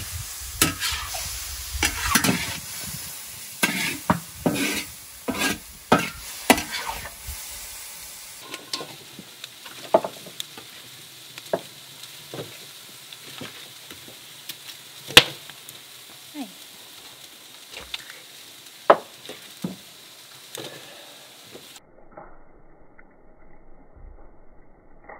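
Metal spatula stirring and scraping vegetables in a large wok sizzling over a wood fire, quick repeated strokes over a steady hiss. After about eight seconds this gives way to a quieter stretch of sparse, sharp clicks and snaps.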